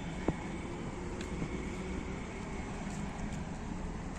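Steady hum of distant road traffic, with one short click just after the start.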